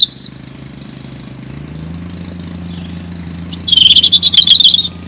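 European robin singing: the end of a phrase right at the start, then a loud phrase of high, fast-changing trilling notes lasting about a second, some four seconds in. A low steady drone runs underneath.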